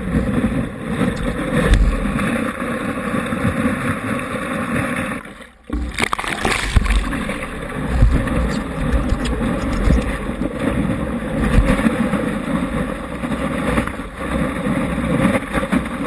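Stand-up paddleboard riding a small wave: water rushing and splashing along the front of the board, a steady loud wash with gusty low rumbles. It drops out briefly about five seconds in.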